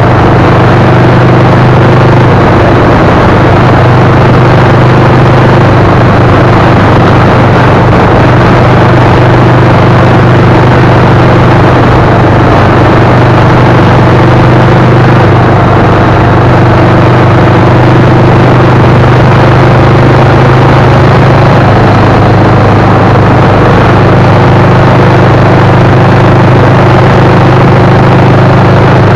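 Loud, steady engine drone and tyre and road noise inside a vehicle cruising at highway speed, with a constant low hum that does not change.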